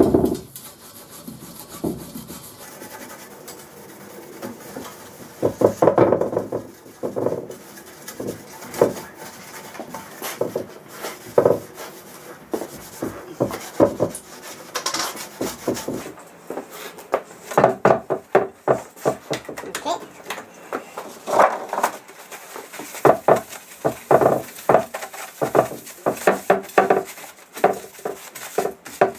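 A cloth damp with white spirit wiping the bare cast-iron table of a JET JWBS-18Q bandsaw in quick rubbing strokes, with light knocks against the table. It is cleaning off the factory's protective coating. The strokes come sparse at first and fast and steady from about halfway on.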